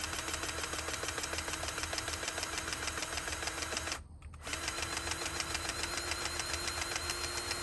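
A machine runs steadily with a rapid, even knocking pulse. It drops out for about half a second around four seconds in, then carries on with a faint steady tone above it.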